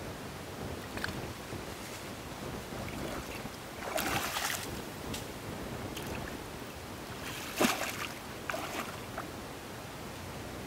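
Water splashing in a lake, with two louder splashes, one about four seconds in and a sharper one near eight seconds, over a steady hiss of outdoor air.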